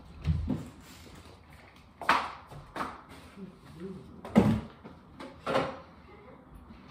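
Wooden dining chairs being carried in and set down, giving a string of about five separate knocks and thuds of wood on the floor and table; the loudest comes about four and a half seconds in.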